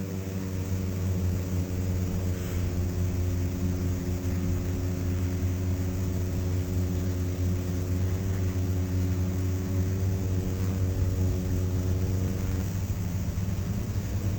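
Beehive hum: many bees buzzing together in a steady, even drone, with a strong low hum and several steady tones stacked above it.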